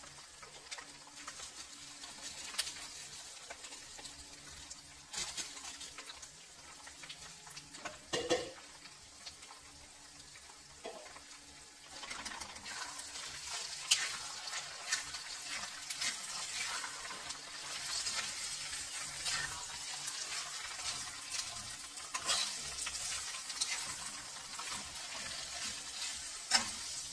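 Shrimp paste (alamang) and pork sizzling in a stainless-steel wok while a metal spatula stirs and scrapes through it, with sharp clinks of the spatula on the pan. The sizzle grows louder about halfway through.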